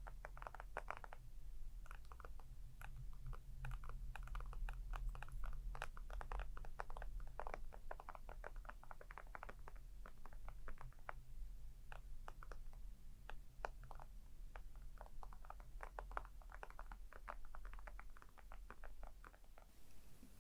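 Fingernails tapping lightly on a hard object, many quick taps in irregular clusters, over a faint low hum.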